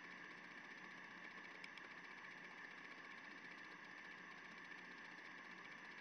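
Near silence: faint steady room tone with a low hum.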